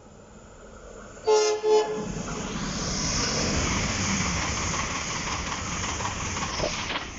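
Irish Rail 22000 Class InterCity Railcar, a diesel multiple unit, gives two short horn blasts about a second in, then runs through the station at speed with a steady rush of wheels on rail that holds until near the end.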